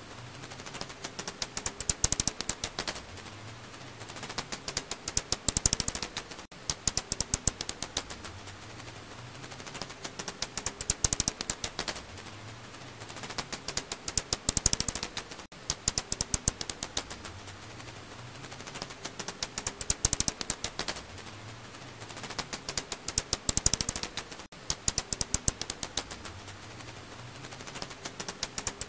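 Bat calls of the 검은집박쥐 (a Korean house-bat species), made audible as rapid trains of dry clicks. The clicks come in bursts a few seconds apart.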